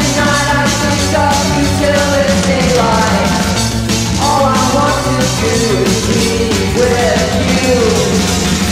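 Early-1980s rock recording: a full band playing, with steady bass, regular drum hits and a lead line that slides up and down in pitch.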